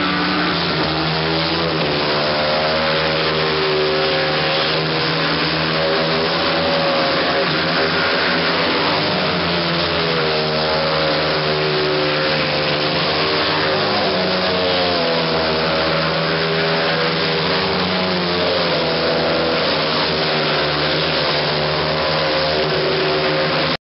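Speedway motorcycles' 500 cc single-cylinder methanol engines racing, the engine note rising and falling repeatedly. The sound cuts off abruptly near the end.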